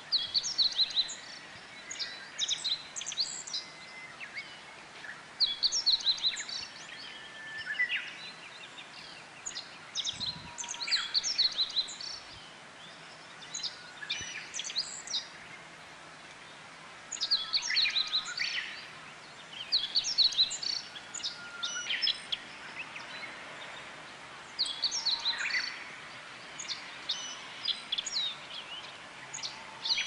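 Songbirds chirping and twittering in bursts of quick high notes, a burst every second or two with short pauses between.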